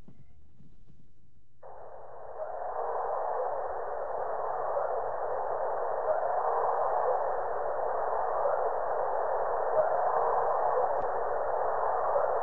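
Played-back field recording, heavily filtered: a steady hiss confined to a narrow middle band starts about two seconds in and slowly grows, with faint whoops in the background that are offered as alleged Sasquatch calls.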